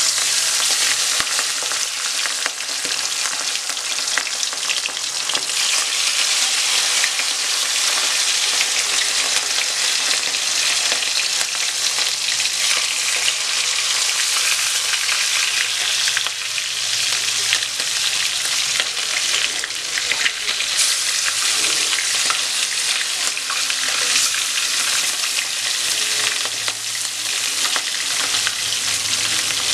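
Pieces of hilsa fish frying in hot oil in a wok: a steady, loud crackling sizzle full of small spits and pops, with more pieces being added along the way.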